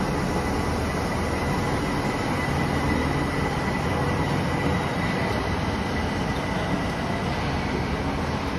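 Osaka Metro 30000 series subway train pulling out of an underground station: a steady rumble of wheels on rail with a thin, steady high whine, echoing under the platform roof.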